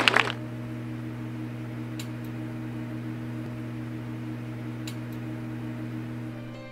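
Steady low electrical hum over a faint hiss, with two faint clicks about two and five seconds in: the surface noise of an old-film effect.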